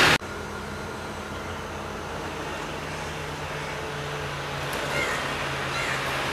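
Steady engine hum of a road vehicle, growing a little louder toward the end.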